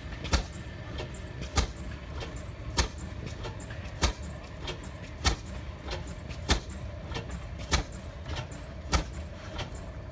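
Large, slow-running stationary engine firing, a sharp exhaust bang about every one and a quarter seconds over a steady low rumble, with fainter knocks between the bangs.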